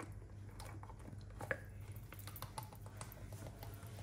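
Cold whipping cream pouring thick from a carton spout into a plastic bowl of ingredients, making faint small plops and clicks, with one sharper click about a second and a half in, over a low steady hum.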